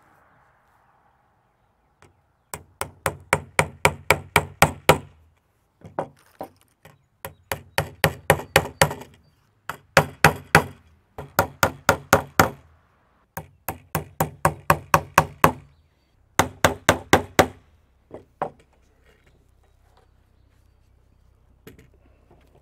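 Small hammer tapping a clamp onto a barbed fitting in half-inch polyethylene irrigation tubing laid on wooden boards: quick runs of sharp knocks, about four to five a second, in bursts of one to two seconds separated by short pauses.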